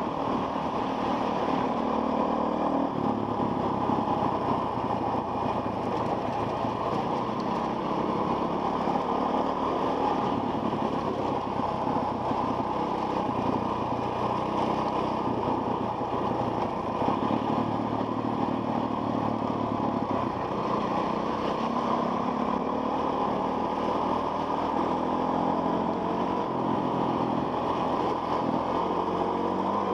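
Dirt bike engine running continuously as it is ridden along a rough dirt trail, its revs rising and falling with the throttle. It is heard from a helmet camera.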